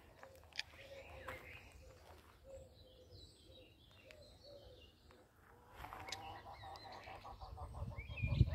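Small birds chirping and calling faintly, short curling chirps in the middle and a faster pulsing call later. A low rumble on the microphone builds near the end.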